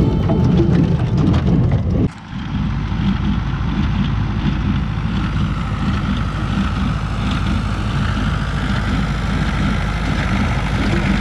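A tractor engine running steadily as it pulls a working small square baler through hay, taking over from a music track that fades out at the start; the sound briefly drops away about two seconds in, then the machinery carries on.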